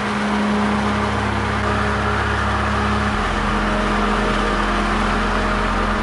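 A car driving at road speed, heard from inside the cabin: a steady engine hum under the rush of tyre and road noise. The low hum shifts slightly in pitch about halfway through.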